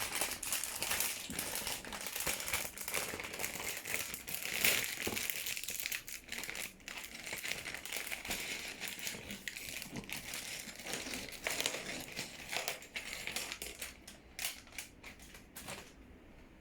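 Plastic LEGO parts bag being handled and opened, crinkling and crackling continuously, with the crinkling thinning out near the end.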